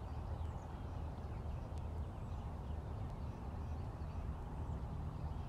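Steady low rumble of wind buffeting an outdoor phone microphone, with a few faint high chirps.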